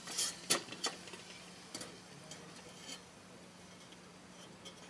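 A quick cluster of light clicks and knocks, then a few softer ticks, from coffee gear being handled while pour-over coffee is set up. A faint steady low hum runs underneath.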